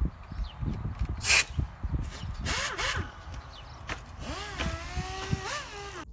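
Handling knocks and two short bursts of hiss, then a dual-action (DA) sander spun up in short trigger pulls near the end, its pitch rising and falling several times.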